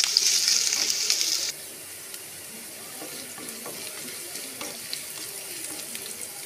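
Chopped garlic, ginger and green chillies sizzling in hot oil in a wok, stirred with a wooden spatula. The loud hiss drops off suddenly about one and a half seconds in, leaving a quieter sizzle with light spatula scrapes.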